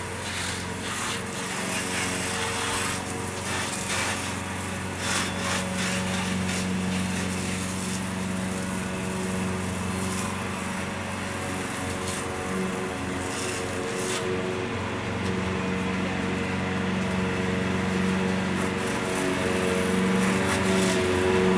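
A small motor running steadily under a high hiss, with a few brief clicks or knocks.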